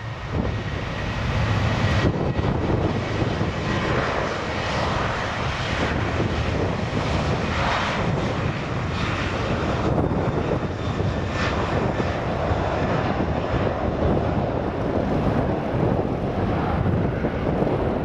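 Boeing 737-800 jet engines (CFM56-7B turbofans) at takeoff thrust: a steady, loud rumble with no break.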